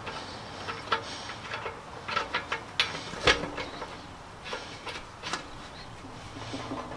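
Irregular metal clinks and knocks, a dozen or so, some with a short ring, the loudest about a third of the way in: bolts, washers and nuts being handled against the steel tractor wheel rim.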